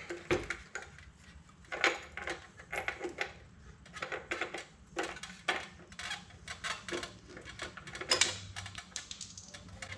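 Irregular metallic clicks and clinks of tools and exhaust hardware being handled while the stock exhaust is fitted to the motorcycle.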